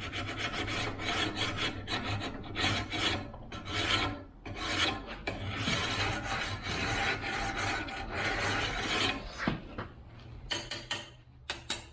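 Flat chainsaw file drawn back and forth along the steel rails of a 24-inch Oregon chainsaw bar, quick repeated rasping strokes that dress the rails flat and take off the burr, or wire edge. The filing stops near the end, with a few short sharp clicks.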